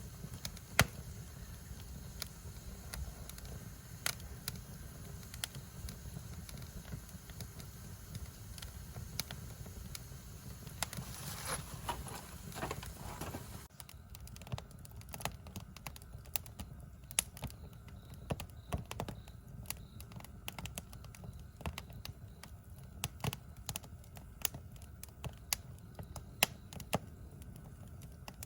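Wood campfire crackling, with irregular sharp pops and snaps over a steady low rumble. A hissing rush swells for about two seconds near the middle, then drops away.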